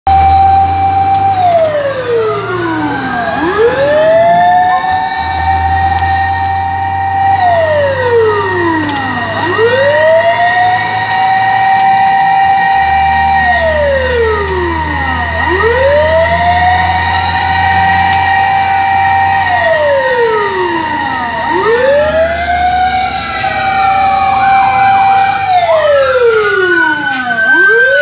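Fire truck siren wailing: the pitch climbs, holds high for a few seconds, then slides down, repeating about every six seconds over the rumble of the truck's engine. A steady high tone runs alongside it, and near the end more sirens sweep in over it.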